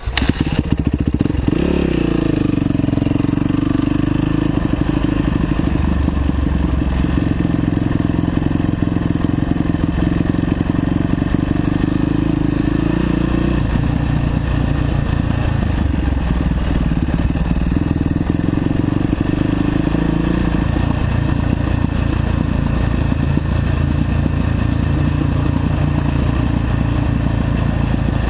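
2009 Yamaha YZ450F's single-cylinder four-stroke engine running as the dirt bike rides down a dirt road. The engine comes in abruptly at the start with a quick rise in pitch, then runs steadily, and its note changes about halfway through.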